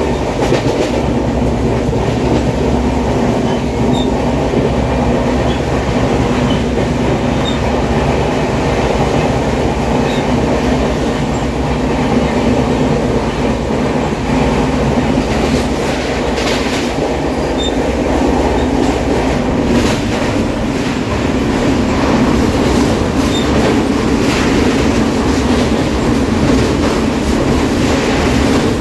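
Passenger train running, heard from a carriage window: a steady rumble of wheels on the rails, with a run of clicks and knocks about halfway through, growing a little louder near the end.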